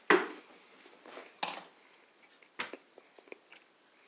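Sharp knocks and clatter from handling bell peppers and a knife on a baking tray. The first knock, right at the start, is the loudest; two lighter ones follow about a second and a half and two and a half seconds in, with a few small ticks after.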